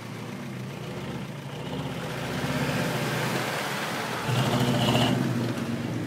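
Off-road SUV engine revving as it pulls away across wet grass, wheels spinning and flinging mud. The revs build and are loudest about four seconds in, with a rush of spinning tyres.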